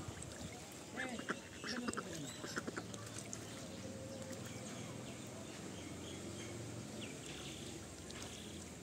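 A duck quacking, a few short calls between about one and three seconds in.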